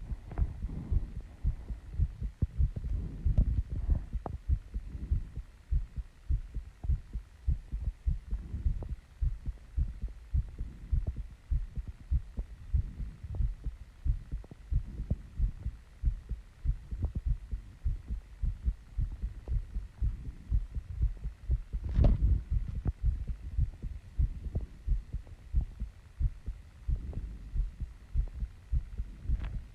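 A woman's fast heartbeat, picked up close to the chest after running and squats: rapid low thumps in quick succession. About two-thirds of the way through there is a single sharper knock.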